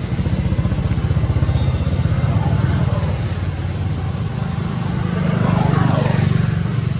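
A motor vehicle engine running nearby, a low pulsing rumble that grows louder about five seconds in.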